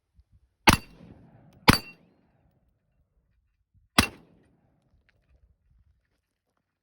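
Three gunshots from an LWRC direct-impingement AR-15 rifle: two about a second apart, then a third some two seconds later, each a sharp crack with a short fading tail.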